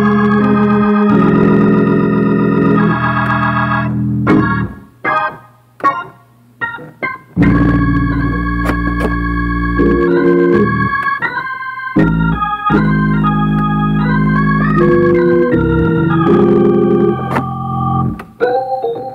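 Organ playing a gospel song solo: held full chords over a deep bass line. About four seconds in it breaks into short, detached chord stabs with gaps between them, then the full chords and bass return about three seconds later.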